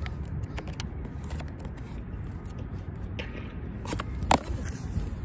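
A cardboard shipping box being handled and its packing tape cut with scissors: scattered scrapes, taps and clicks, the loudest sharp click about four seconds in, over a steady low rumble.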